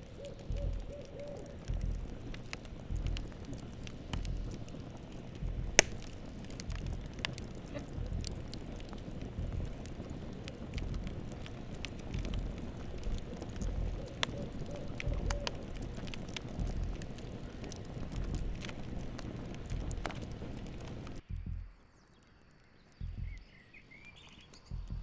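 Campfire crackling and popping, with one sharp loud pop about six seconds in. The crackling cuts off abruptly about 21 seconds in, leaving a faint steady high insect drone and a few small chirps.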